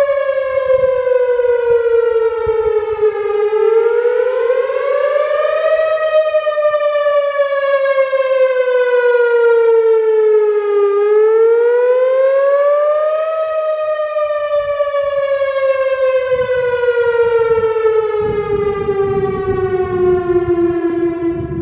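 Whelen Vortex outdoor warning siren sounding a wail test signal: one loud tone gliding slowly down and up in pitch, about one rise-and-fall every seven seconds. The last fall is longer and drawn out, and the sound starts to fade at the very end.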